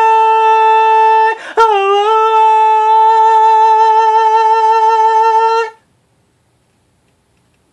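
A man's voice holding one long sung or hummed note, steady in pitch, broken by a click about a second and a half in and then taken up again with a slight waver, before it cuts off suddenly near six seconds.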